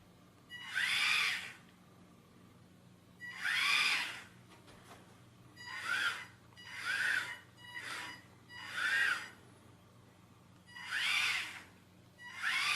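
Elegoo V3 robot car's DC gear motors whining in about eight short bursts. Each burst rises then falls in pitch as the motors spin up and stop, every burst one press of a button on the infrared remote.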